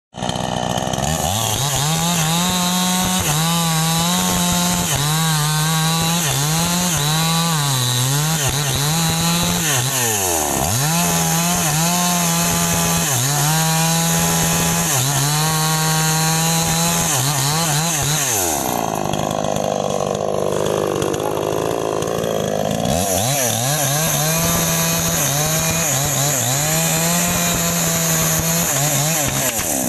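Two-stroke chainsaw running at high revs while cutting into a sengon tree trunk, its engine note dipping again and again as the chain bites into the wood. The revs fall away briefly about ten seconds in and again for several seconds past the middle as the throttle eases, then climb back up to cutting speed.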